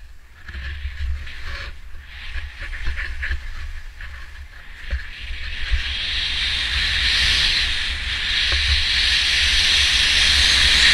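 Skis hissing and scraping over snow on a downhill run, with wind buffeting the microphone. The hiss grows steadier and louder from about halfway through.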